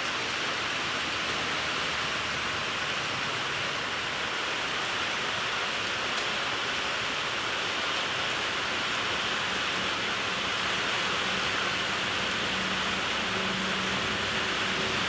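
Heavy rain pouring down in a steady hiss. Near the end a faint low hum rises under the rain.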